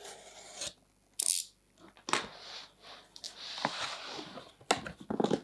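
A cardboard shipping carton being cut open: a blade scraping along the packing tape and the tape tearing, with a sharp burst about a second in, then cardboard scraping and rustling as the carton is handled.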